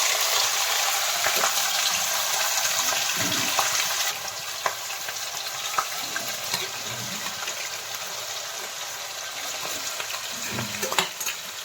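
Bone-in chicken pieces sizzling in hot oil in a kadai, just dropped into oil tempered with whole spices. The sizzle is loud at first and eases about four seconds in, with small clicks and scrapes of the meat being stirred and cut in the pan.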